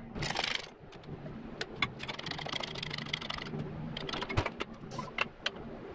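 Metal clicks, knocks and rasping scrapes as a shop press is set up and worked to push a new front wheel bearing into a 2006 Subaru Impreza steering knuckle, the bearing not yet fully seated. A faint low hum runs underneath.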